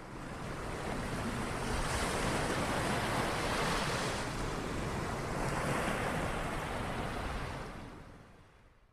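Rushing, surf-like noise of a sound effect under an animated channel logo: it fades in, swells twice, and fades away near the end.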